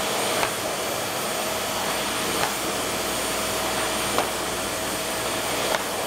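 Vacuum cleaner running steadily, its floor nozzle drawn over a shaggy chenille bath mat: an even rushing noise with a faint steady whine and a few light clicks about every two seconds.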